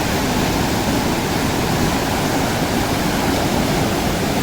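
The fast-flowing Parvati River rushing in a steady, loud roar of water close by.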